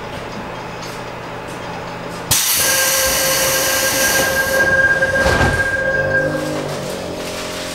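Subway car doors closing at a station stop. About two seconds in, a sudden loud hiss starts with a steady warning tone over it. A thud comes just past the middle as the doors shut, and low humming tones set in near the end.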